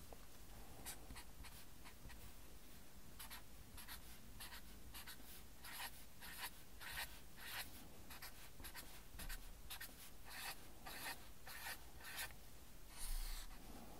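Red felt-tip marker writing on paper: a faint, quick series of short scratching strokes as digits are drawn one after another, with a longer stroke near the end.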